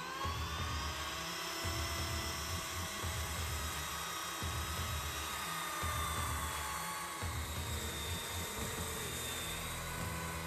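Skil Super Sawsquatch 16-5/16-inch beam-cutting circular saw running at full speed through a thick ponderosa pine timber, a steady high whine that sags slightly under load partway through the cut.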